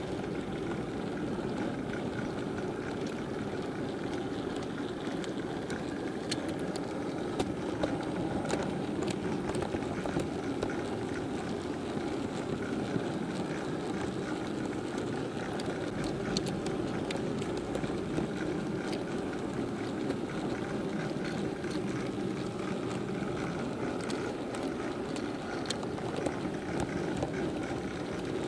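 Model freight train running, heard from a camera riding on one of its wagons: a steady rumble of the wheels on the track and the drive, with scattered sharp clicks as the wheels cross rail joints and points.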